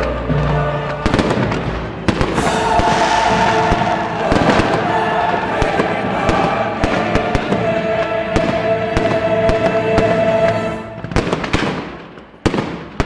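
Fireworks bursting in quick succession, sharp bangs and crackles over recorded music. The bangs thin out and the level dips near the end, then one sharp bang.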